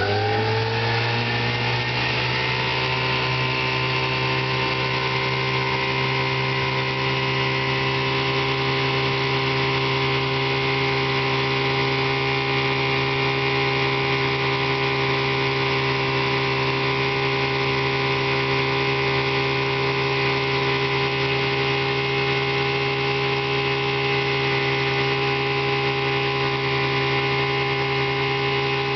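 1963 Johnson 5.5 hp two-cylinder two-stroke outboard motor running with the boat under way. Its pitch rises over the first couple of seconds as it speeds up, then holds steady.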